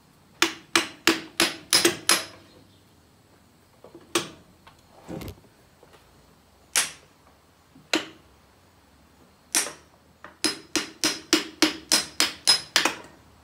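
Hammer blows on metal, each with a short metallic ring. A quick run of about six strikes comes first, then a few single blows, then a fast run of about a dozen near the end, driving the pistons out of a Cockshutt 40 tractor engine's cylinders.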